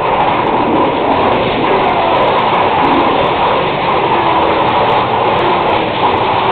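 Big Thunder Mountain Railroad mine-train roller coaster running along its track, a loud, steady rumbling noise of the ride in motion.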